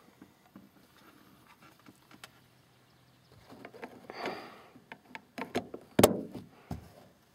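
Plastic dome-light lens cover being handled and pressed into its housing in a car's headliner: a brief rustle, then several sharp plastic clicks as it snaps in, the loudest about six seconds in.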